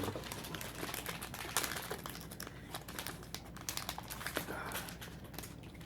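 Dice Masters booster packs crinkling and tearing as they are opened, with many small clicks as the cards and dice inside are handled.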